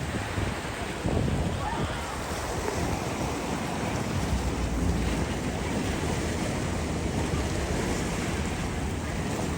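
Sea surf with wind buffeting the microphone: a steady rushing noise with a heavy low rumble.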